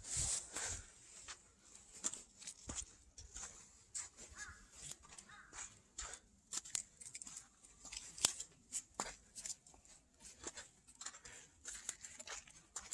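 Footsteps crunching irregularly over frozen ground: a scatter of short, sharp crunches and clicks, one louder crunch near the end.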